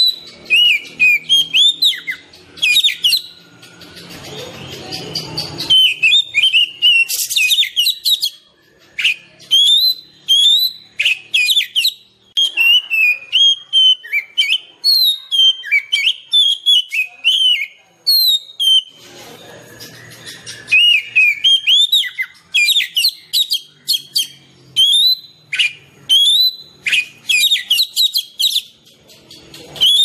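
Male oriental magpie-robin singing: a continuous run of rapid, varied clear whistles and chirps, each note sliding up or down in pitch, with a few short harsh high notes mixed in.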